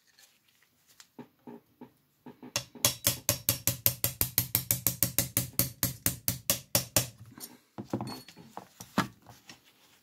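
Rapid, even run of light metal taps, about seven a second for some four seconds, then a few scattered knocks, one louder near the end: a small pin being tapped out of an M1 carbine's action during field stripping.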